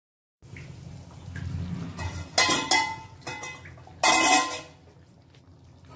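A metal utensil clattering and scraping in a cooking pan: two short loud strokes about two and a half seconds in, then a longer scrape about four seconds in.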